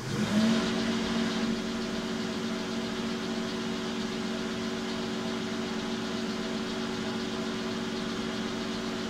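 Small metalworking bench lathe switched on: the motor and spindle spin up within a fraction of a second, then run steadily as a hum made of several steady tones.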